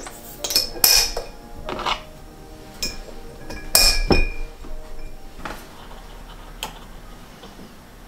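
Glass Weck bottles clinking as their glass lids and metal clamp clips are fitted on. There are about eight sharp clinks with short glassy ringing, the loudest pair about four seconds in.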